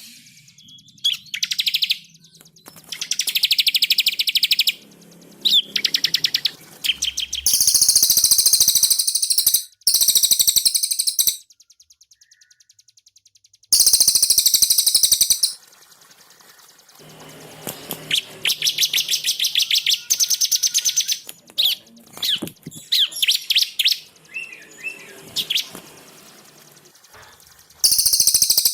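Cililin and ciblek songbirds singing in repeated bursts of rapid, high, chattering trills, each one to two seconds long, with short pauses between; a faint low hum sits under some of the pauses.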